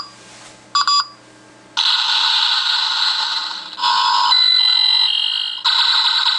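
Transformers Armada Powerlinx Jetfire toy's built-in electronics playing its shuttle-mode countdown and space-flight sound effect. Countdown beeps come first, then about two seconds in a loud rocket-launch rush of noise. Midway a stretch of steady electronic tones breaks the rush, and then the rush returns.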